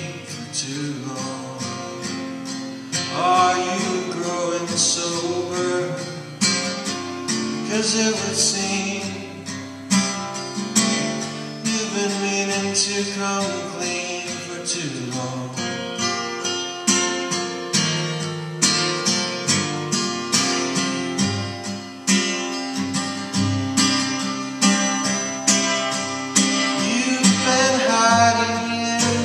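A man playing acoustic guitar and singing, a slow song performed solo, with the voice coming in at times over the guitar.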